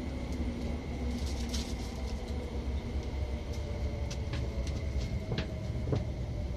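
Tuen Ma line IKK-Train interior as the train slows into a station: a steady low rumble with a faint whine slowly falling in pitch, and a few sharp clicks.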